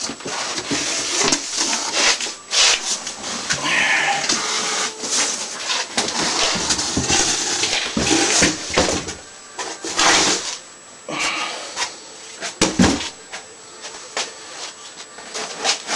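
Cardboard box and packing material being handled and pulled apart: continuous rustling, scraping and crackling, with a few sharp knocks, the loudest near the end.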